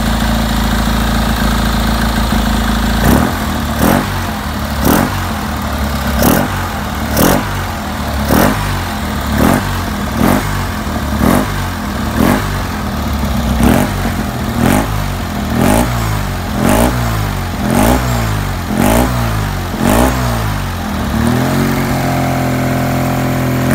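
Tuned 700cc air-cooled two-cylinder Fiat 500/126 engine running on its twin-choke carburettor. It idles for a few seconds, then is blipped by hand at the throttle about once a second, each rev rising and dropping back. Near the end it settles into a steady, faster idle.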